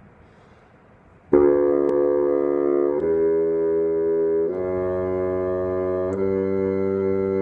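Bassoon playing slow, long held notes in D major, each lasting about a second and a half. The first note comes in suddenly and loud about a second in.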